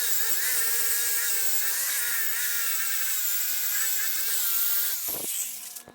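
Power grinder running steadily against steel to clean off the mill scale before welding, with a high wavering whine. It winds down near the end.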